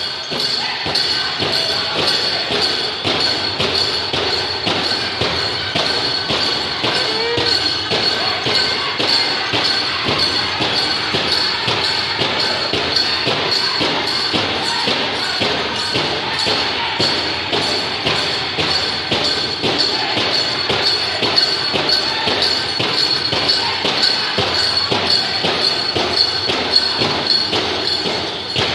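Powwow drum group playing a grass dance song: a big drum struck in a steady, even beat under high-pitched group singing, with the jingle of dancers' bells.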